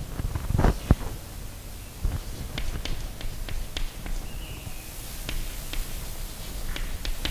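Chalk writing on a blackboard: irregular sharp taps and short scrapes as each letter is written.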